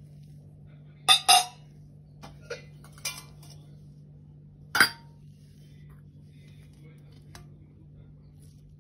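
Sterling silver pooja vessels clinking and knocking against each other as they are handled: two loud clinks about a second in, a few lighter taps, another loud clink with a brief ring near the middle, and a faint tap near the end. A low steady hum runs underneath.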